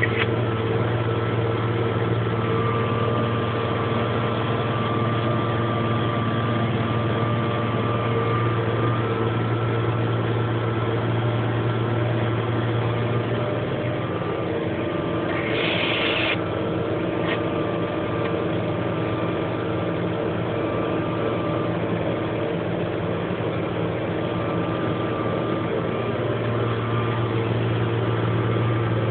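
Same Laser 150 tractor's air-cooled six-cylinder diesel engine running steadily under load while pulling a disc harrow, heard from the cab. Its deep note drops somewhat about halfway through and comes back near the end, with a brief hiss about sixteen seconds in.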